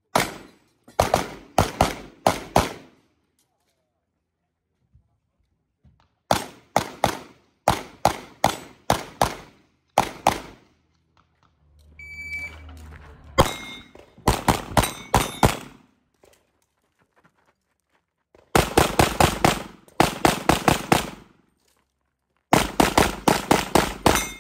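Rapid strings of pistol shots from a compensated .38 Super open-division race gun, fired in quick bursts of several shots separated by pauses of a second or more. A short electronic beep comes about halfway through.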